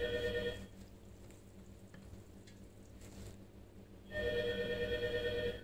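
A telephone ringing: a steady electronic ring of several fixed pitches that stops about half a second in and rings again about four seconds in for about a second and a half.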